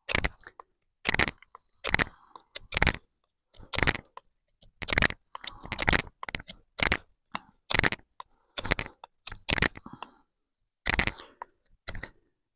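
Fixed-blade bushcraft knife carving a wooden stick: a steady run of short, sharp scraping strokes, about one or two a second, as the blade shaves and notches the wood. The carver finds the blade slips along the wood instead of biting in.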